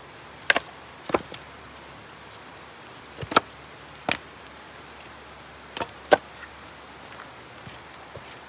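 Split firewood pieces knocking against each other as they are set down and stacked: about six sharp wooden knocks at uneven intervals, some in quick pairs.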